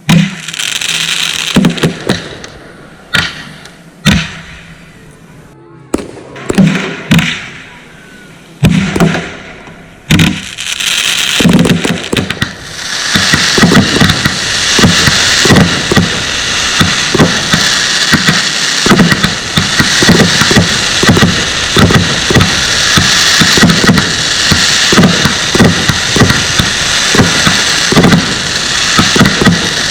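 Consumer fireworks going off: a string of separate loud bangs, each trailing a crackling hiss, then from partway through a dense, continuous barrage of rapid bangs and crackling.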